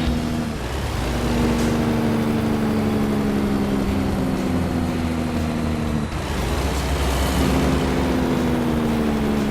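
Heavy truck's diesel engine running steadily, with its engine note dropping out briefly about half a second in and again around six seconds in.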